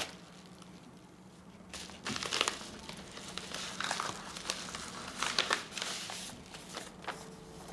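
A small parcel's wrapping being opened by hand, crinkling and tearing in irregular bursts from about two seconds in, over a faint steady hum.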